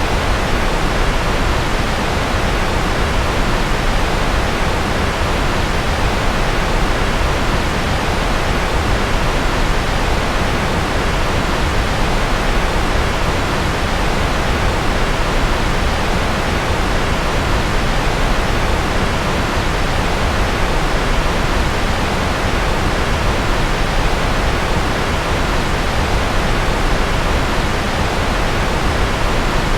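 Steady rocket-style white noise: an even, unbroken rushing hiss, heavy in the bass and thinning toward the top, with no change in level.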